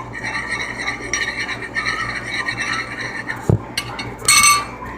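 A utensil stirring and scraping a mix of toothpaste and shampoo in a container, with a dull knock about three and a half seconds in and a short, bright ringing squeak near the end.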